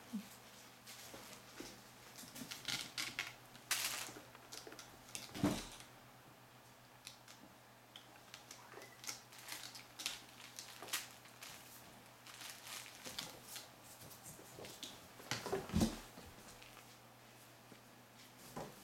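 Kittens scampering and clambering over scratching posts and hanging toys: scattered soft scratches, taps and rustles, with two louder thumps.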